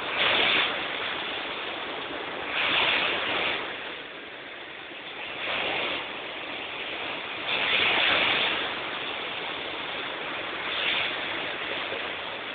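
Ocean surf breaking on a sandy beach: a steady rushing hiss that swells with each wave, about every two to three seconds.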